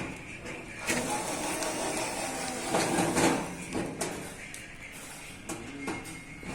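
Vacuum sealing machine running: a mechanical whir with a faint steady tone, broken by clicks and knocks, loudest about three seconds in.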